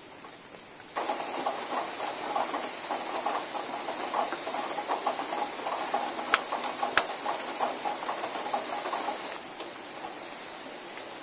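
Small fire of dry leaves crackling and hissing as it is lit with a long-nozzle gas lighter. The crackle starts abruptly about a second in and stops abruptly near the end, with two sharp clicks a little past the middle.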